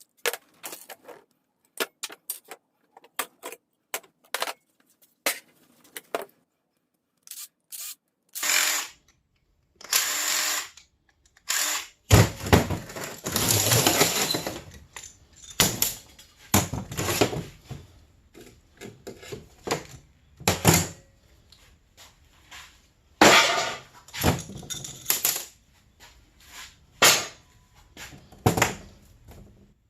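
Scattered clicks and handling knocks, then a power tool run in short bursts of about a second each, with one longer run of a few seconds a little before the middle.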